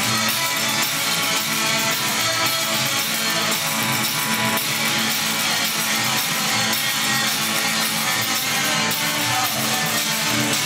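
Live band playing an instrumental passage: strummed guitar with a washboard scraped in rhythm.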